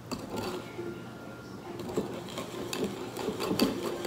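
Wire whisk beating a wet cookie mixture of melted butter, sugar and eggs in a bowl, its wires clicking against the bowl in quick irregular strokes, a little louder near the end.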